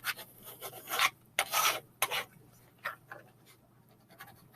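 A scraping tool rubbing over vinyl transfer tape on a wooden board, pressing out trapped air bubbles so the vinyl sticks down. A few short scraping strokes, the strongest about a second and a half in, then it goes quiet near the end.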